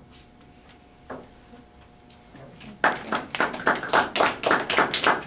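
A few people clapping hands, starting about three seconds in: brief applause at the close of a talk, the separate claps coming several a second.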